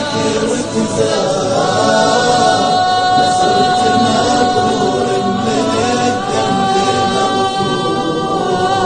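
Background music: an Arabic devotional chant praising the Prophet Muhammad, sung melismatically with a long held note in the middle.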